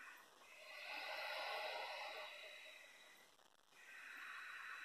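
A person breathing slowly and deeply while holding a stretch: one long, soft breath swells up about half a second in and fades after roughly three seconds, and the next breath begins near the end.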